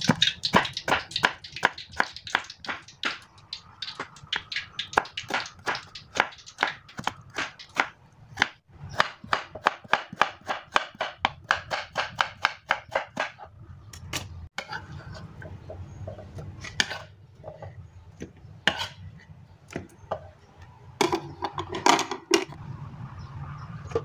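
Knife slicing chayote on a wooden cutting board: a quick, even run of cuts, about four a second, each stroke knocking on the board. In the second half the cuts thin out to a few scattered knocks.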